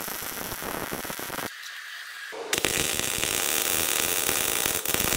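Welding arc crackling and sputtering as a weld bead is laid on a broken steel air-ride bracket. The arc stops about a second and a half in, then strikes again a second later and runs on louder.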